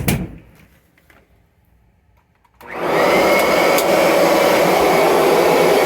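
A sharp click, then about two and a half seconds in the 2017 Kirby Avalir upright vacuum's motor is switched on, spins up quickly and runs steadily and loudly with a thin high whine, after sitting unused for a while.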